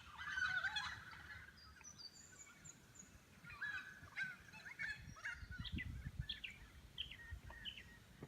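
Several birds calling and singing together in a morning chorus of short chirps and whistled notes, with a low rumble about two-thirds of the way through.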